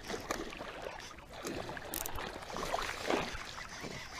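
Small bass thrashing at the water's surface on the end of a fishing line, making a few irregular light splashes.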